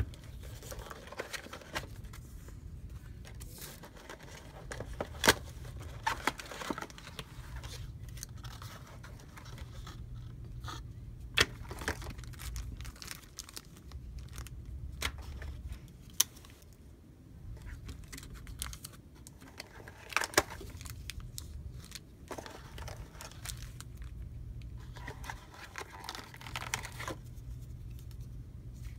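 Phone packaging being handled: plastic wrap and bags rustling and crinkling, with scattered sharp clicks and taps as the earphones and charger are lifted from the cardboard box and set down.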